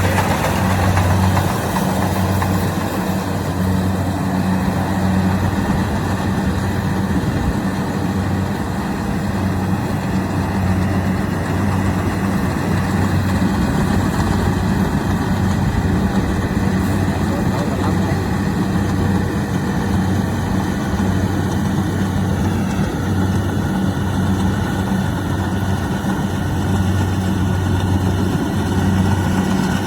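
Kubota DC-70 Plus rice combine harvester's diesel engine running steadily, with the continuous mechanical noise of the machine working.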